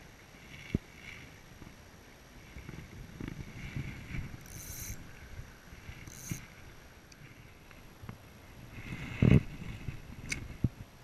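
Spinning reel cranked in short turns, a light whirr, with rustling and handling noise as the angler moves through brush. One loud knock about nine seconds in.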